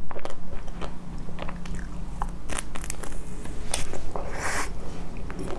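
Close-up biting and chewing of a chocolate-coated ice cream bar: the chocolate coating cracks and crunches in many sharp snaps, with a longer, noisier crunch about four and a half seconds in.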